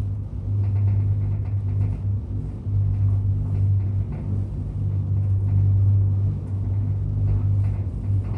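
A steady low machine drone, a motor or engine running at an even pace, with a few faint ticks and rattles over it.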